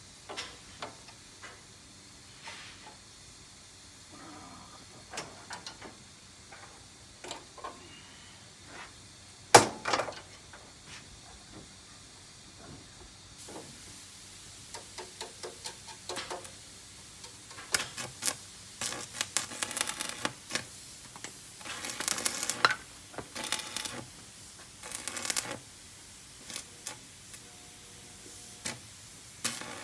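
Arc welding a steel patch onto a Tadano truck crane's column: short bursts of crackling sizzle, densest in the second half, between scattered clicks and taps, with one sharp knock about ten seconds in.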